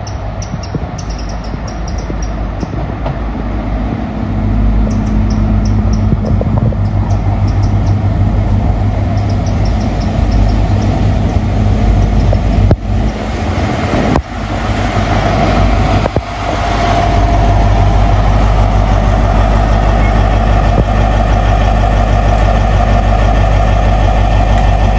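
GWR Class 43 HST diesel power car coming alongside the platform and running past with its coaches. There is a steady diesel engine note and rolling wheels, growing louder from a few seconds in and loudest in the second half as the power car and coaches pass close by.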